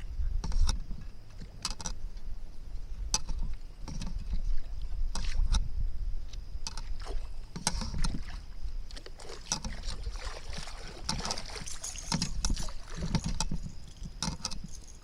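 Wind buffeting the microphone and water lapping against a kayak, with scattered small clicks and knocks.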